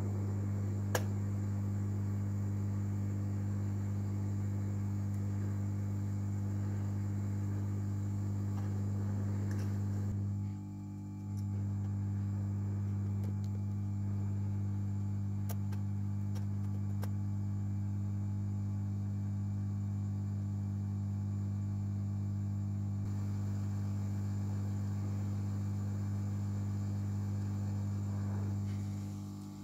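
Hot air rework station blowing on a laptop motherboard to desolder the CD3301 chip: a steady blower hum. It goes briefly quieter about ten seconds in and falls away near the end as the air is shut off.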